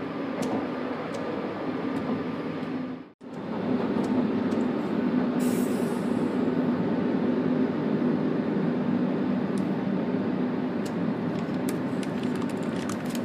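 MOB Golden Pass panoramic train running, a steady rumble with a low hum. About three seconds in the sound breaks off sharply and resumes as the train is heard close by from outside, with a short hiss and a few light clicks near the end.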